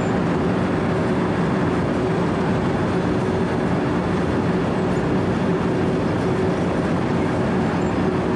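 A Wirtgen W 120 CFi 4-foot cold milling machine running under load, its diesel engine and cutting drum grinding asphalt in a steady, even drone with a constant low hum.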